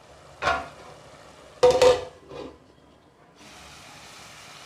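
Vegetables frying in oil in a pot while a metal spoon scrapes and stirs them three times, the second scrape the loudest and ringing; from about three and a half seconds in a steady sizzle takes over.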